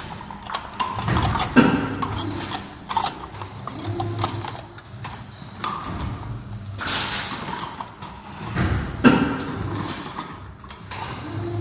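Stacks of thin disposable clear plastic cups in plastic sleeves being handled by hand: irregular crinkling and rustling of plastic, with a sharper knock about one and a half seconds in and again about nine seconds in.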